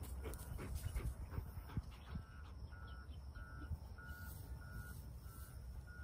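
Retriever whining and whimpering, loudest in the first couple of seconds, over a steady electronic beep that repeats about every two-thirds of a second.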